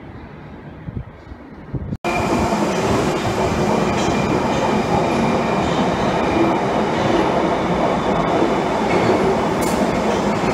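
London Underground 1972-stock Bakerloo line tube train running into the platform at speed: a loud, steady rush of wheel and motor noise with faint high whines. It starts abruptly about two seconds in, after a quieter low rumble.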